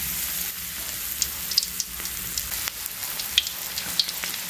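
Battered okra deep-frying in hot oil in a wok: a steady sizzle with scattered crackling pops.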